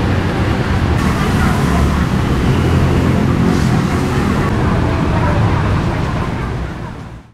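Street ambience: steady traffic noise with voices mixed in, fading out near the end.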